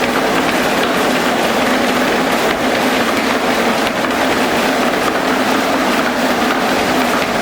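Glass crushing and magnetic separation machinery running: a loud, steady machine noise with a constant hum.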